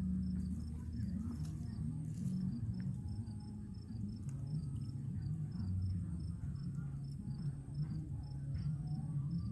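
Cricket chirping in an even rhythm of about three short, high chirps a second, over a louder low layer of tones that shift in pitch.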